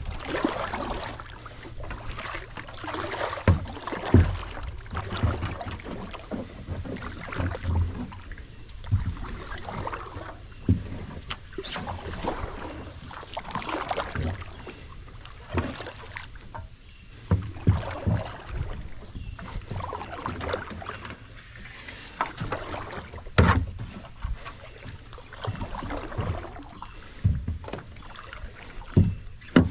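Kayak paddling: the paddle blades dipping and swishing through the water in an uneven rhythm, with occasional sharp thumps, several of them loud.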